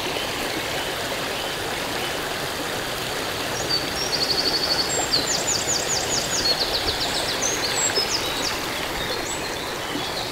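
A small woodland brook bubbling steadily, with a Eurasian wren singing one long, rapid, high trilling song from about a third of the way in until near the end.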